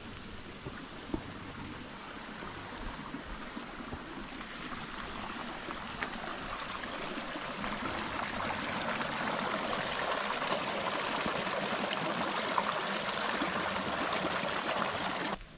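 Water of a small waterfall in a gorge running in a steady rush, growing louder over the first half and stopping suddenly near the end.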